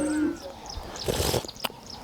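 Small birds chirping in quick, short falling notes. A lower animal call tails off at the very start, and a short burst of noise comes about a second in.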